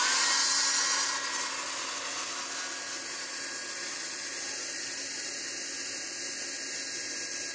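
Hair dryer running: a steady rush of air over a low motor hum. It is louder for about the first second, then settles to a steady level.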